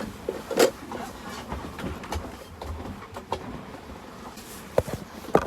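Wind buffeting the microphone and water rushing past a sailboat moving fast under sail, a steady rumble broken by a few sharp knocks about half a second in and near the end.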